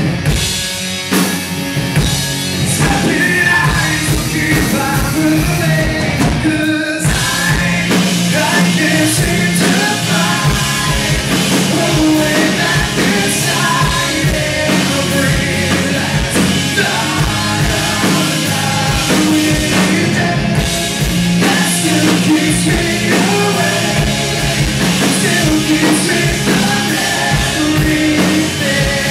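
Live rock band playing with electric guitars, bass and drums, a male voice singing over them.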